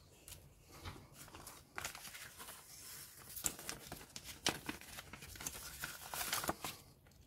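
Paper rustling and crinkling as hands leaf through a kit's instruction booklet and slide a decal sheet out of it. The handling starts about two seconds in and dies away near the end.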